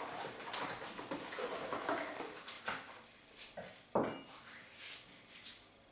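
Crinkling of clear plastic packaging and small clicks and knocks of parts being handled, with one sharper knock about four seconds in.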